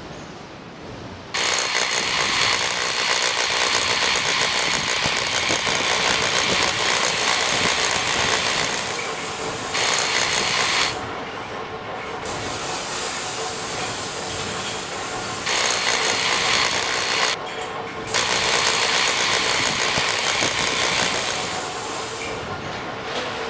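Construction-site power tools working on concrete or stone, loud and harsh, with a steady high whine on top. They start abruptly about a second in and run in long stretches that stop and restart, with a quieter site din in between.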